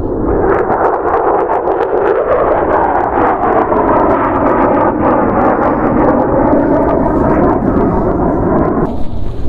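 Jet aircraft on a low-flying military exercise passing by, a loud roar whose tone slowly falls in pitch as it goes over, cutting off suddenly near the end.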